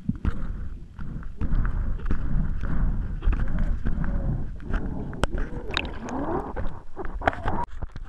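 Muffled water rush and rumble heard through an underwater camera housing as a magnet-fishing magnet is hauled up through dock water on its rope, with many sharp clicks and knocks. Near the end it comes out of the water.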